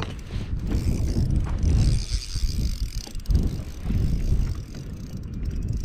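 Fishing reel being cranked as a hooked bass is reeled in, with wind rumbling on the microphone.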